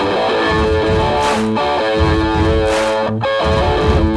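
Background music: a song led by guitar over a steady beat.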